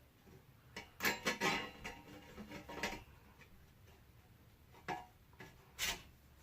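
Metal exhaust parts, a header and test pipe pieces, clinking and tapping against each other as they are handled and fitted together: a short cluster of sharp clicks about a second in, then a few single taps spaced out later.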